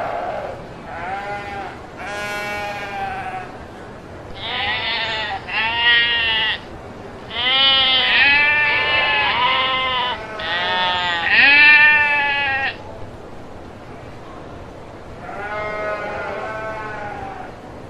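Sheep bleating repeatedly: a run of wavering, quavering calls of varied pitch, some overlapping. They come one after another for most of the stretch, then pause, and one more bleat comes near the end.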